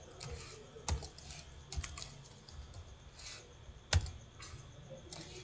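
Computer keyboard typing: irregular, scattered keystrokes, with one sharper, louder click about four seconds in.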